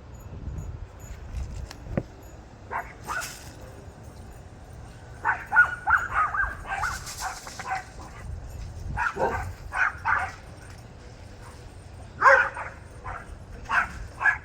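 A dog barking in several short runs of quick barks, over a steady low rumble.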